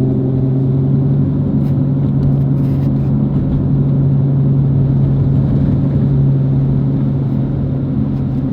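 Chevrolet Corvette's V8 engine running at a steady, gentle cruise, heard from inside the cabin as an even low drone with road noise underneath.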